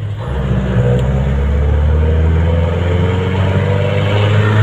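Jeepney's diesel engine heard from inside the passenger cabin, picking up about a third of a second in and then running steadily.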